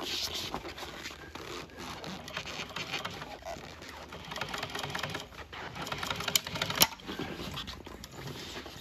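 Thor industrial sewing machine stitching a seam in pink boat-seat upholstery material, a rapid steady clatter of needle strokes, with a couple of sharper clicks about two-thirds of the way through.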